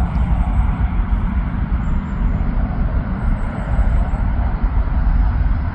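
Airbus A330-343's Rolls-Royce Trent 700 turbofans at takeoff thrust: a steady, deep roar, heavy in low rumble.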